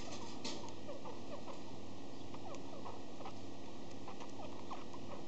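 Budgie making soft, rapid squeaks, many short falling notes with a few faint ticks among them: the weird sounds that its owner takes for the sniffles.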